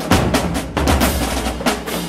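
Marching band drumline playing a fast cadence: rapid snare drum strokes over heavy bass drum hits, with crash cymbals. The heavy low hits land just after the start and again about three-quarters of a second in.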